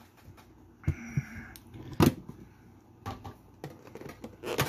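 Scattered clicks and knocks of hands handling and opening a metal trading-card tin, the loudest knock about two seconds in.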